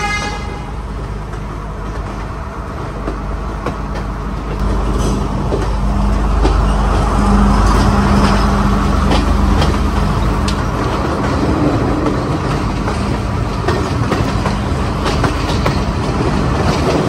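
Diesel passenger train pulling away, heard from the open door of a coach: a steady engine drone and low rumble, with wheel clicks over rail joints and points that come in after a few seconds and grow louder as it gathers speed.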